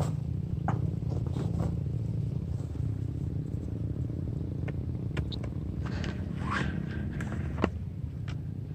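Rustling and light footsteps through bankside grass and weeds, with scattered short clicks and swishes over a steady low rumble.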